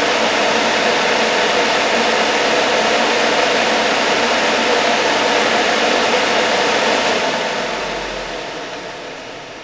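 Dyna-Glo Delux 50,000 BTU kerosene forced-air heater running with a steady rush of air from its fan, then winding down over the last couple of seconds as it shuts itself off. The heater tries to start but fails to fire, which the owner takes to be a lack of fuel.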